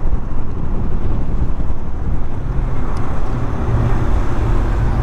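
Yamaha SMAX 155 scooter's single-cylinder engine running while riding, heard under steady wind rushing over the camera microphone.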